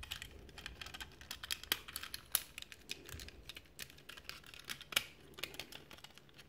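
Plastic parts of a red Stinger Transformers toy clicking and snapping as it is folded by hand from robot into car: a run of irregular, sharp clicks.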